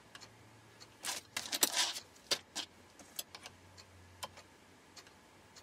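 Plastic clicks and rattles from the control knob on top of a small portable fan heater being turned and handled: a quick cluster of clicks about a second in, then scattered single clicks.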